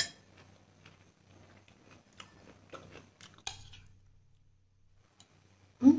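Close-up chewing and crunching of diced mango, with scattered sharp clicks that fit a metal spoon tapping a glass bowl. A short low thump near the end is the loudest sound.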